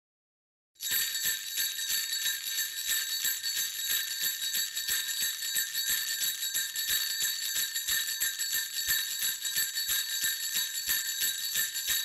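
Jingle bells shaken steadily, starting about a second in, a dense high jingling with a constant ring.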